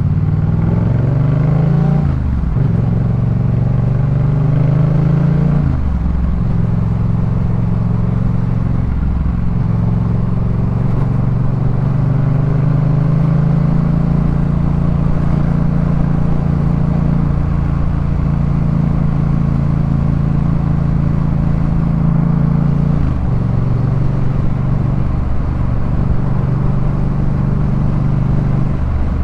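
2018 Yamaha MT-07's parallel-twin engine through a Jeskap K4 full aftermarket exhaust, under way: the revs climb and break with gear changes about two, six and nine seconds in, then hold steady at cruise, with a drop in revs several seconds before the end.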